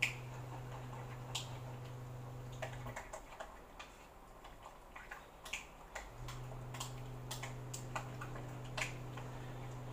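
Hands mixing raw chicken pieces with egg and oyster sauce in a bowl: irregular wet squishes and small clicks. Under it a steady low hum drops out for about three seconds in the middle.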